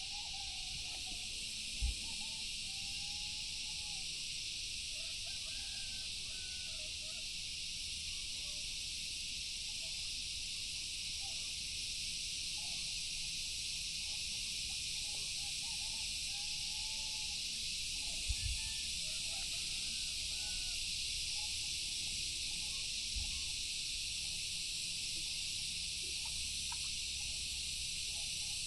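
A steady, high-pitched insect chorus, with faint short wavering calls underneath and a few dull low bumps.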